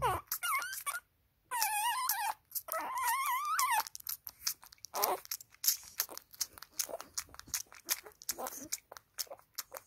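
Newborn Shar-pei puppy nursing at its mother's teat: quick wet suckling clicks and smacks, with three high, wavering squeals in the first four seconds.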